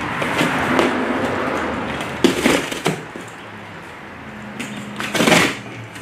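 A dull knife scraping and sawing through corrugated cardboard, with crackling and tearing as the box side gives way, and a loud crunch of cardboard a little past five seconds in as a cut side is bent down.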